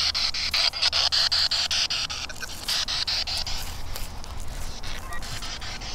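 P-SB7 spirit box sweeping through radio stations: hissing static chopped by an even run of clicks, about five a second.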